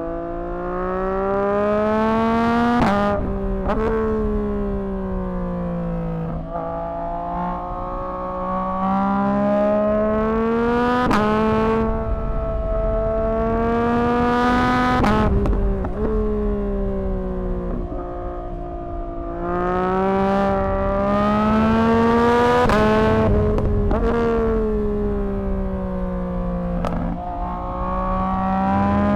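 2024 Yamaha MT-09's 890 cc inline-three engine through a Dominator HP6 aftermarket exhaust, pulling hard through the gears. The pitch climbs and then drops with a sharp crack at each upshift, several times, and falls back as the throttle eases between runs.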